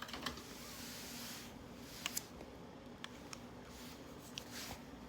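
Desktop computer just powered up, its fans running with a faint steady hum, with a few small clicks from handling.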